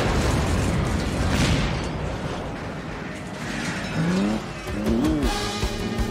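Film action soundtrack: the rumble of a tanker-truck explosion fading, then a big-rig truck engine revving, with music underneath.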